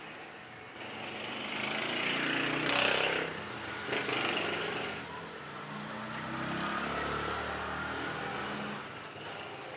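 A small motor vehicle's engine passing close by, growing louder to a peak about three seconds in, with a sharp knock about four seconds in. Later an engine note rises in pitch, then fades.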